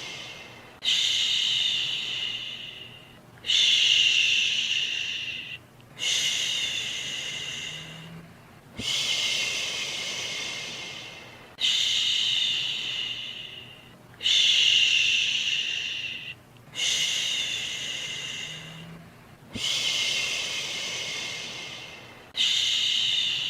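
A soothing 'shhhh' shushing sound repeated about every two and a half to three seconds, nine times. Each shush starts suddenly and fades away slowly.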